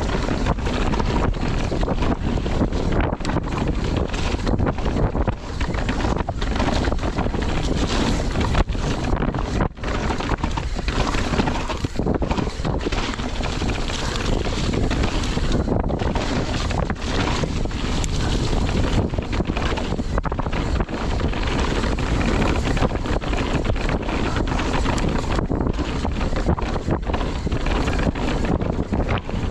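Wind rushing over the on-bike camera's microphone, mixed with the steady rumble of a Santa Cruz downhill mountain bike's knobby tyres rolling fast over a dirt forest trail.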